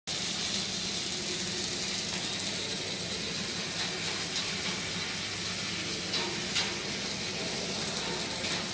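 Electric arc welding: the arc crackles and hisses steadily without a break, with a faint low hum and a few sharper pops about six seconds in.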